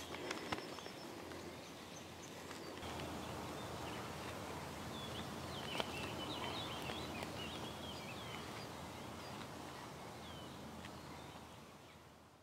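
Small birds chirping intermittently over a steady outdoor hush, with a few light clicks in the first second; the sound fades out near the end.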